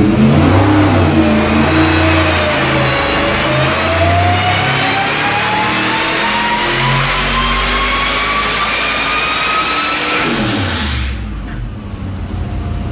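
A 427ci LS V8 with a Whipple 3.0L twin-screw supercharger making a full-load pull on an engine dyno, its revs and a whine climbing steadily from about 2,600 rpm. About ten seconds in the throttle closes and the revs fall away quickly toward idle.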